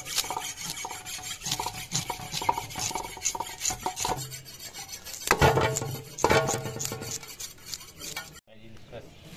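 Metal fish scaler scraping the scales off a hilsa fish on an aluminium tray: quick, repeated rasping strokes, with a louder run of strokes a little past the middle. The scraping cuts off suddenly near the end, leaving quieter background.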